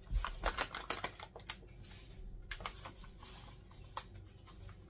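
Granulated sugar poured from its bag into a stainless steel mixing bowl, with the bag crinkling: a dense run of small clicks and rustles through the first second and a half, then scattered single ticks.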